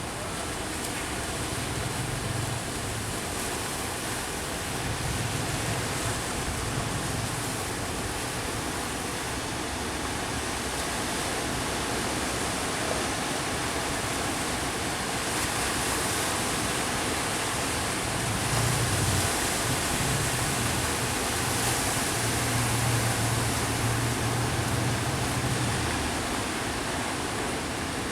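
Sea waves and surf washing in, a steady rush of noise that swells a little louder in the second half, with a faint low hum coming and going beneath it.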